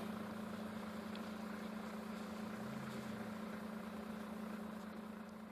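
A steady low hum over an even hiss, like an engine idling.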